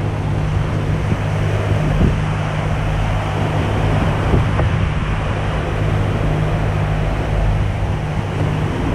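Steady wind rumble on the microphone over the wash of small surf waves breaking on a sandy beach.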